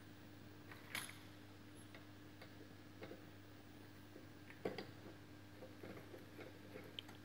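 Faint, scattered metallic clicks and taps of a T-handle wrench working the central nut of a precision seeder's seed-disc hub as the clamping washer is tightened, over a steady low hum.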